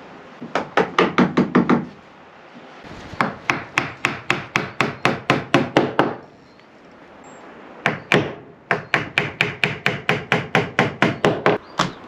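A hand tool working wood in quick, even strokes, about six a second, in three runs with short pauses between.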